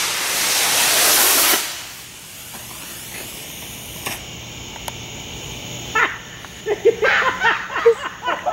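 Model rocket motor firing on a rocket-powered toy car running along a string line: a loud hiss that cuts off after under two seconds. About six seconds in, people's voices break out in short exclamations.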